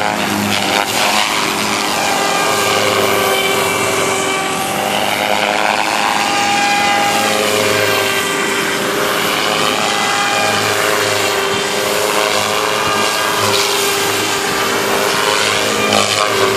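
Devil 380 radio-controlled helicopter in aerobatic flight: a steady whine of motor and rotor blades whose pitch rises and falls as the helicopter manoeuvres and passes.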